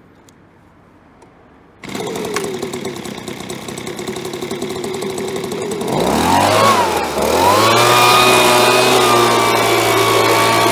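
STIHL BG75 handheld blower's small two-stroke engine starting suddenly about two seconds in and running at a low idle. Around six seconds in its pitch swings up and back down, then it settles into a louder, steady higher-speed run.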